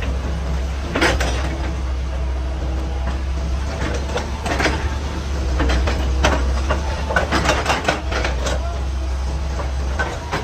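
Excavator's diesel engine running steadily with a low rumble, with irregular clanks and knocks of the bucket working against rock, thickest in the middle and later part.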